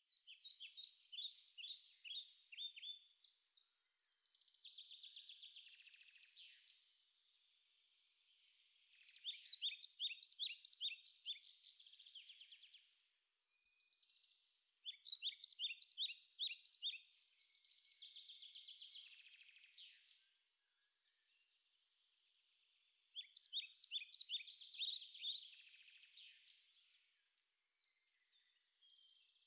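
Songbirds singing faintly: bouts of quick, high chirping phrases a few seconds long, repeated after short pauses.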